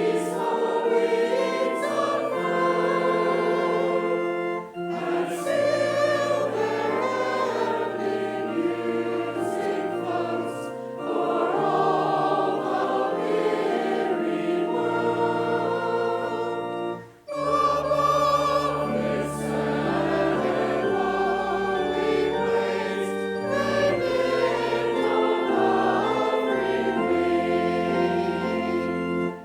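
A church choir singing a hymn in harmony over held organ bass notes. There are short breaks between phrases about five seconds in and again around seventeen seconds, after which the bass sits lower.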